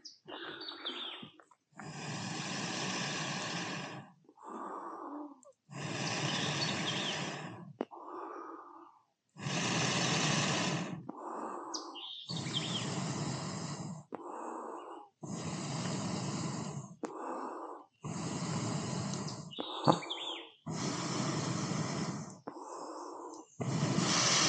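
A person blowing hard into a smouldering wood fire through a fire-blowing tube to get it to catch: about eight long, hissing blows, each a couple of seconds, with a quick inhale between them.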